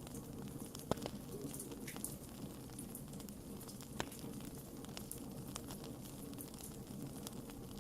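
Wood fire burning in a fireplace: a steady low rush of flames with scattered crackles and sharp pops, the loudest pops about a second in and at about four seconds.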